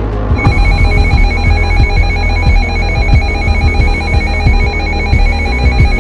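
Electronic alert tone warbling rapidly, like a trilling phone ring, starting about half a second in, over a loud low pulsing background.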